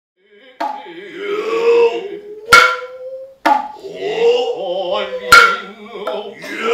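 Noh drums struck sharply several times, two strokes much louder than the rest, each ringing briefly. Between the strokes come long, wavering vocal calls.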